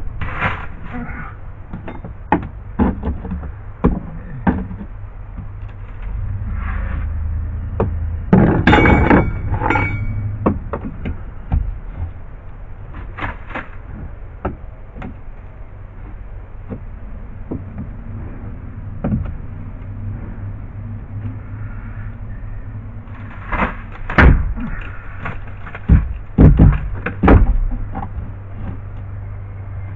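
Steel mini crowbar prying up a boat's plywood floor: irregular knocks, scrapes and cracks of the bar levering against the wood. The louder strikes come in a cluster about nine seconds in and again around 24 to 27 seconds in.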